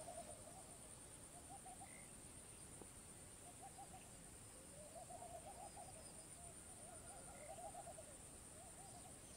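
Near silence with faint, repeated trilling calls from an unseen animal, coming in short groups every second or two, over a steady high-pitched hiss.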